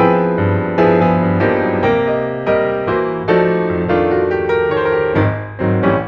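Background piano music: a gentle melody of struck notes and chords, a new note about every half second.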